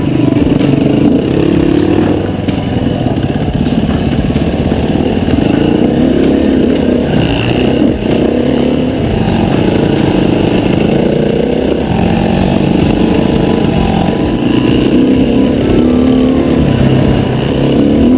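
Enduro motorcycle engine running hard off-road, its pitch rising and falling again and again with the throttle, with scattered clicks and knocks from the bike over rough ground.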